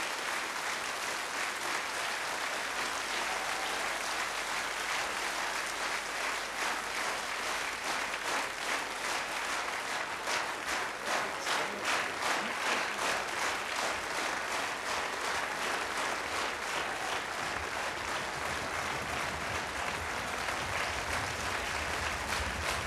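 Large audience applauding. For a few seconds around the middle the clapping falls into time together in a regular beat.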